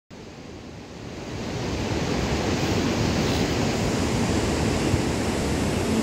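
Steady rushing of the Kaveri River's white-water rapids and waterfall at Gaganachukki, growing louder over the first two seconds and then holding steady.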